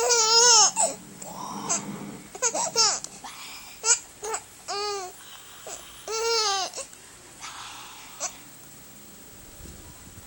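A baby's high-pitched squeals and coos: four arching calls, each well under a second long and a second or two apart, with quieter gaps between them and a calm stretch near the end.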